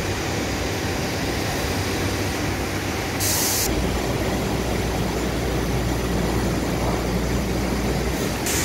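Steady mechanical rumble under constant background noise, deepening from a few seconds in, with a short burst of hiss about three seconds in and another near the end.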